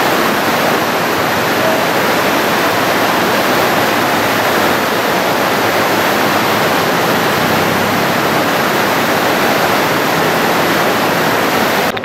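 Loud, steady rush of whitewater river rapids, cut off abruptly at the very end.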